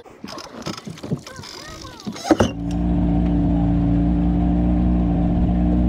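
A boat's gasoline outboard motor catches about two and a half seconds in, after its fuel primer bulb has been pumped, then runs steadily. Before it starts there are a few knocks and rustles of handling.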